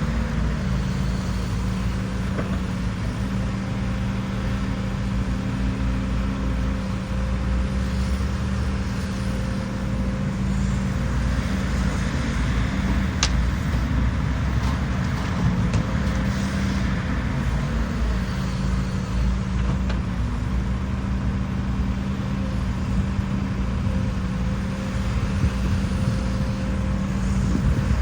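Diesel engine of a Hidromek excavator running steadily at work, a low continuous drone, with one sharp click about halfway through.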